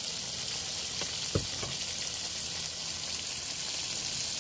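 Flour-coated chicken pieces deep-frying in a pot of hot oil: a steady sizzle of bubbling oil, with one brief knock about a second and a half in.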